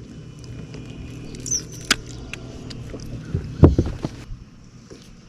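Fishing boat on the water: a steady low hum with clicks, and a heavy knock about three and a half seconds in. The hum drops away shortly after the knock.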